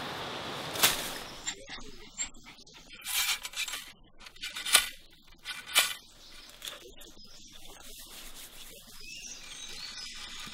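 A machete chopping through jungle undergrowth, with a sharp chop about a second in and several more strikes and rustles over the next few seconds. After that come quieter scraping and handling sounds of hands working soil and twigs.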